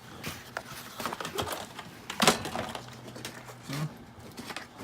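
A hard plastic drill bit case and its bits being handled, giving scattered clicks and knocks. The loudest is a sharp clack a little over two seconds in.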